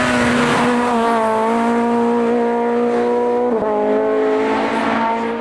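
Hillclimb race car engine held at high revs under full throttle, one steady high-pitched note with a short dip about three and a half seconds in, fading out near the end.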